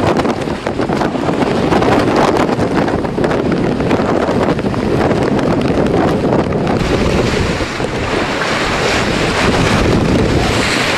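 Wind buffeting the microphone and water rushing past the hulls of a Searunner trimaran sailing fast close-hauled in a breeze, with a louder surge of hiss near the end.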